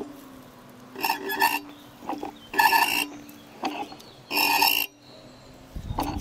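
Sofim 8140 diesel injector on a hand-lever pop tester, grunting as it opens and sprays in three short bursts about every second and a half, each a buzzing rasp with a hiss. It sprays a fine jet rather than dribbling, so this injector is not blocked.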